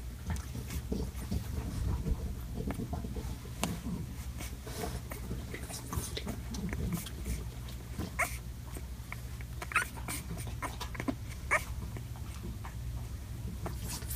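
Young puppies snuffling and moving about, with several short high squeaks in the second half, over a steady low hum.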